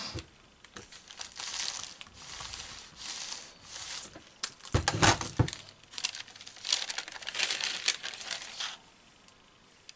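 A household iron sliding back and forth over a sheet of paper, the paper rustling and crinkling under it, with a louder bump about five seconds in. The sounds stop about nine seconds in.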